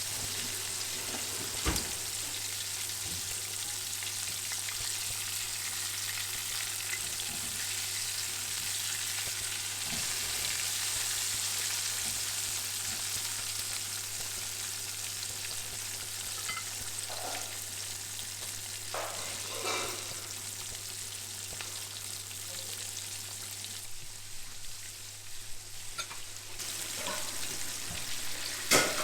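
Chicken pieces deep-frying in hot oil, giving a steady, even sizzle. A couple of sharp knocks break through, one near the start and a louder one near the end.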